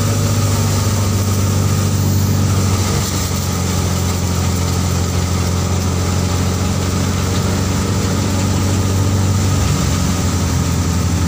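Tractor-powered thresher running steadily: the tractor engine's steady low hum under load, belt-driving the thresher, over a continuous rushing whir from the threshing drum and blower throwing out straw.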